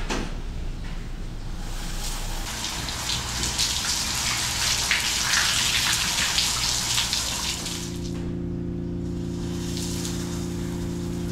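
Water spraying from an outdoor coin-operated shower head onto a person and the tiled floor, as a steady rushing hiss. Near the end the spray eases and a steady low hum comes in under it.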